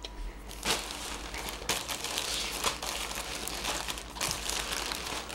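Wrapping crinkling and tearing as a pack of trading cards is unwrapped by hand: irregular rustling and crackling, picking up just under a second in.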